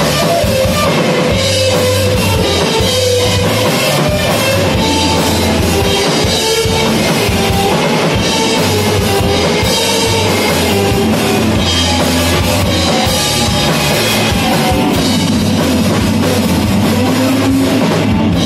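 A live rock band playing loudly: electric guitar over a full drum kit, heard from among the audience in a small room.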